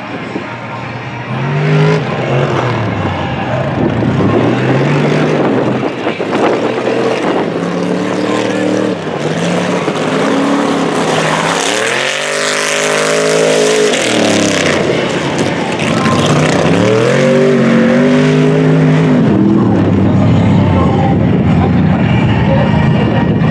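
Mega truck engine racing hard, revs climbing and dropping again and again as it throttles and shifts. About twelve seconds in it passes close by, louder, its pitch falling as it goes past.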